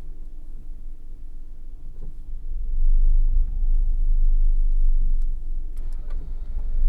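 Car driving, recorded by an onboard camera: a steady low rumble of road and engine that grows louder about two and a half seconds in, with a few light clicks near the end.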